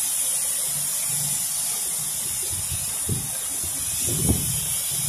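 Steady high-pitched hiss of process-plant background noise, with a couple of soft low thumps about three and four seconds in.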